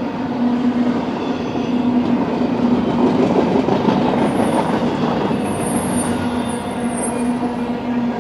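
Freight train's intermodal well cars rolling past, a steady rumble and clatter of steel wheels on rail. A thin, high-pitched squeal joins in from about four seconds in until near the end.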